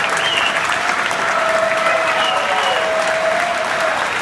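Concert audience applauding and cheering.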